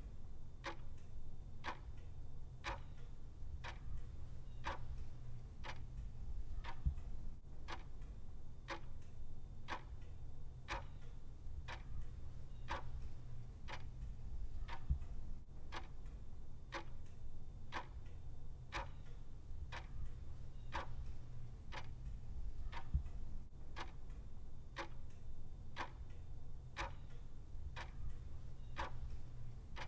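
A clock ticking steadily, about one tick a second, over a faint low hum.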